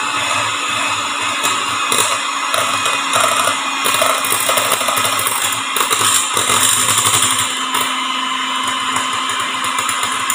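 Electric hand mixer running steadily, its beaters whipping egg whites in a stainless steel bowl toward stiff peaks. It gets a little louder from about two to seven seconds in.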